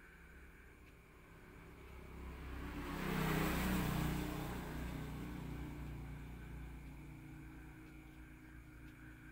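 A passing motor vehicle, its sound swelling to a peak about three seconds in and then slowly fading away, over a steady low hum.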